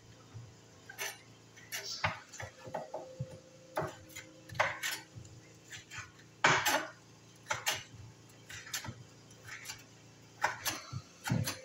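Irregular knocks and clinks of kitchen utensils and dishes, one or two a second, some sharper and louder than others.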